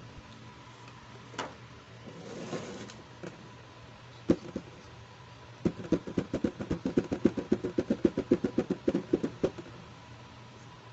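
Fingers tapping rapidly on the lid of a clear plastic storage box, about eight or nine taps a second for nearly four seconds in the second half. Before that come a few separate clicks and a soft rustle of the plastic.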